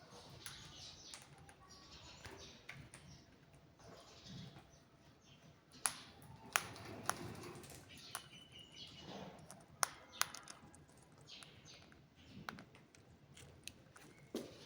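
Pet parrot making soft chirps and rustling sounds, with scattered sharp clicks.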